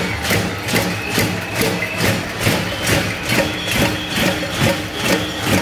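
Marchers banging pots and pans in a steady beat, about two and a half strikes a second, over a low steady drone.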